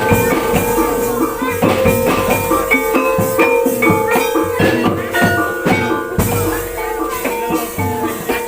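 Live Javanese barongan gamelan music: quick runs of struck metallophone notes over repeated hand-drum strokes, with one steady ringing tone held underneath.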